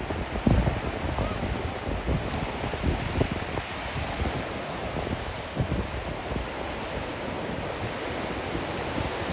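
Small surf waves breaking and washing onto a sandy beach, with wind gusting on the microphone in low, uneven buffets.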